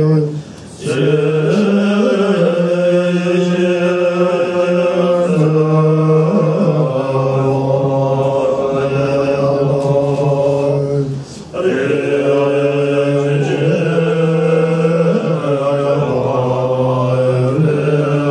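Tibetan Buddhist monks chanting together in low male voices, long held notes that step up and down in pitch, with brief breaks about half a second in and about eleven seconds in.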